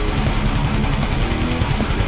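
Heavy distorted electric guitar riff played through a 100-watt Marshall valve amp head, with a fast, even rhythm.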